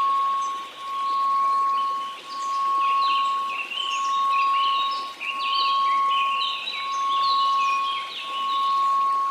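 Steady 1098 Hz sine tone over a hiss of white noise, the whole sound swelling and fading about every second and a half, with birdsong chirping over it.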